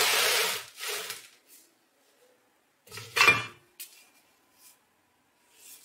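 Loose cast-metal bench grinder parts knocking and clattering against each other and against an aluminium tray as they are handled, the loudest a ringing clank about three seconds in. It opens with a loud rushing noise that cuts off in the first second.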